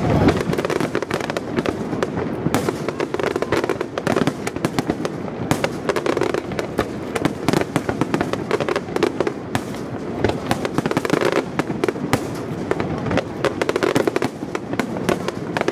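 Fireworks display: a dense, continuous barrage of aerial shells bursting, with many sharp bangs and crackles overlapping one another.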